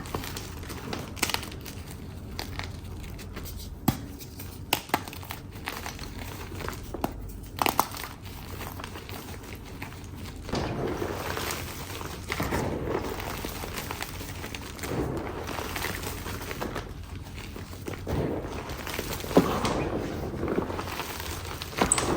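Chalk being crushed: scattered sharp cracks and snaps at first, then denser crunching and crumbling swells from about ten seconds in.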